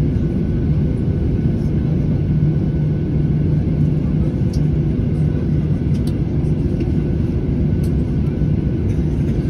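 Cabin noise of a Boeing 737-800 on the runway: its CFM56-7B turbofan engines running at a steady power with a constant low rumble and hum, heard from inside the passenger cabin. There is no rising spool-up whine.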